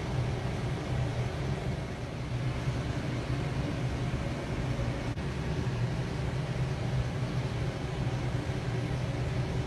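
Steady low mechanical hum with a rumble, running evenly with no breaks.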